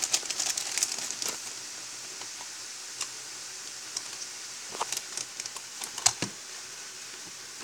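Clear plastic bag crinkling as a small plastic toy figure is taken out of it, followed by scattered light clicks and taps as the figure is handled.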